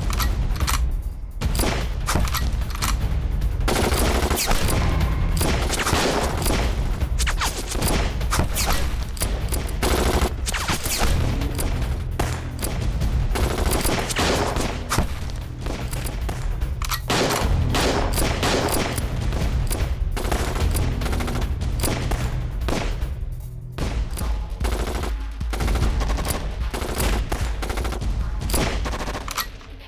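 Dense, continuous battle gunfire: many rifle shots overlapping, with bursts of rapid machine-gun fire.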